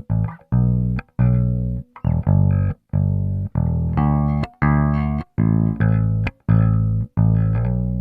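Cort GB64JJ electric bass played clean, with no effects, EQ or compression: a line of separate plucked notes, about two a second, each stopped short before the next. The last note is left ringing near the end.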